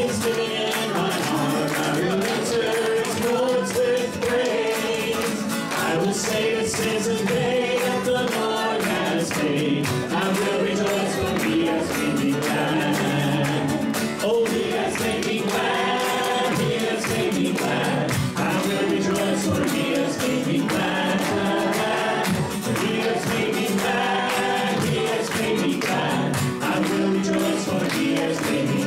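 A gospel song sung live as a duet by a man and a woman into microphones, with the man strumming an acoustic guitar.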